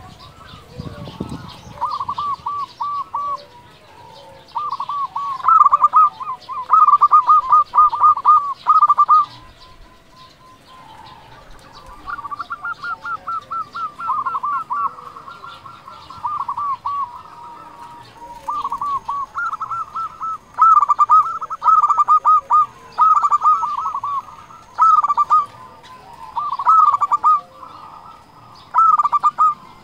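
Zebra dove (perkutut) cooing in full song: repeated phrases of quick, arched staccato coo notes, each phrase lasting a second or two with short pauses between.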